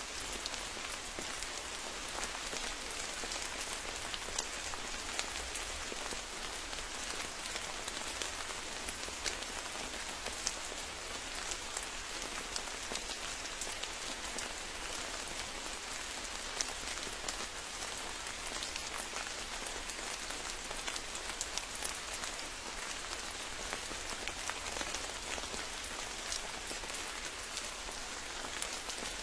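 Steady rain falling, a continuous hiss with many close individual drops ticking on leaves and surfaces.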